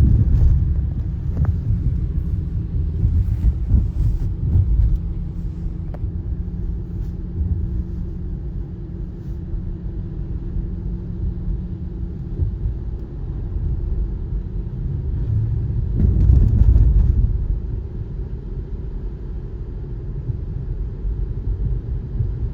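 Road noise heard from inside a moving car: a steady low rumble of tyres and engine with a faint steady hum, swelling louder for about a second around two-thirds of the way through.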